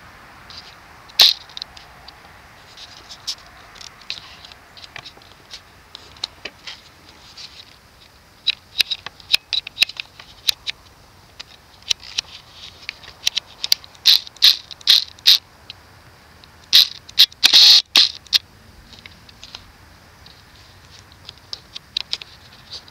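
Irregular mechanical clicking and short ticking bursts from a camera lens's autofocus motor, picked up by the Nikon D610's built-in microphone. The clicks come in clusters, heaviest and loudest a few seconds before the end.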